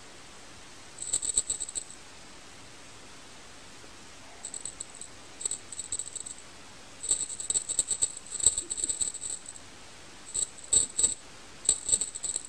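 A small jingle bell shaken in bursts of quick jingles, stopping and starting several times, over a steady hiss.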